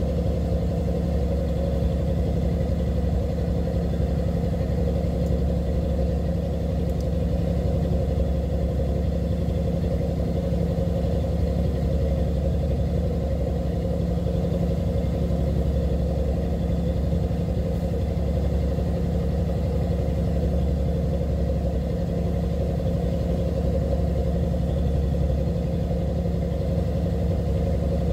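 A fishing boat's engine running steadily with an even, deep drone.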